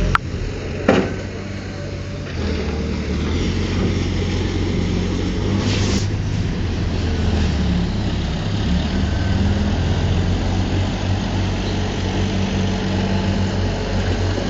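Diesel engine of a heavy earthmoving machine running steadily, with two sharp knocks in the first second and a brief hiss about six seconds in.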